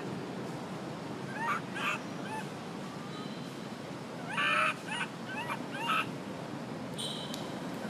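Macaque calling: short squeaky calls that rise and fall in pitch, a couple about a second and a half in, then a quicker cluster from about four and a half to six seconds in.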